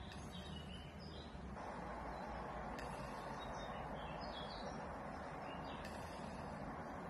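Faint bird chirps over a steady background rush of noise that sets in about one and a half seconds in, with a low rumble underneath.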